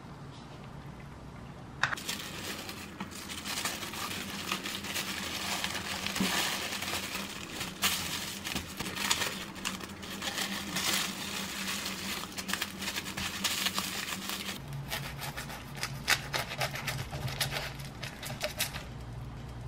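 Plastic sandwich wrap crinkling and crackling with many sharp clicks as it is pulled tight and folded around a thick stacked sandwich. Kitchen scissors snip off the overlapping wrap, and near the end a knife cuts through the wrapped sandwich.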